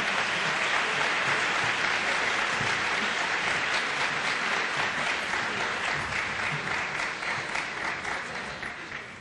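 Audience applauding steadily, the clapping thinning out and fading away over the last few seconds.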